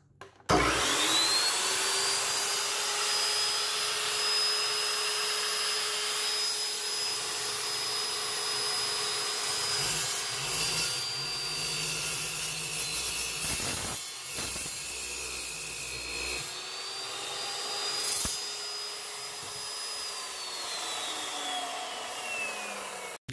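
Evolution metal-cutting chop saw starting with a rising whine and running at speed, then cutting through a metal bushing clamped in its vise, the motor note sagging under load. It then runs free again and winds down with a falling whine near the end.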